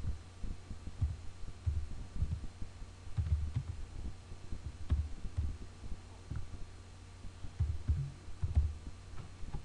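Keystrokes on a computer keyboard at a slow, uneven pace, heard mostly as dull low thumps with faint clicks, over a steady low hum.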